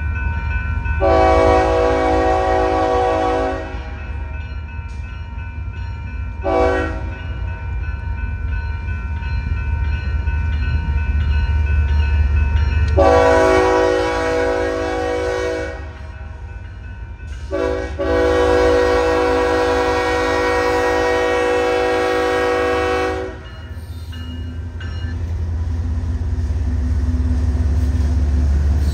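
Freight locomotive air horn sounding a chord in four blasts: a long one, a short one, then two long ones, the last about six seconds. Under the blasts, a steady low rumble from the passing train.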